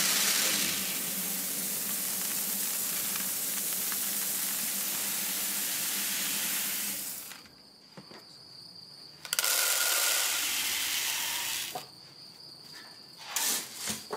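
Steady hiss of something being poured into a bucket, in two pours: a long one that stops about seven seconds in and a shorter one from about nine to twelve seconds.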